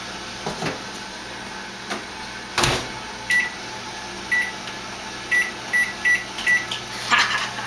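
Microwave oven being set: a door shut with a thump, then six short keypad beeps at one pitch as the cook time is entered.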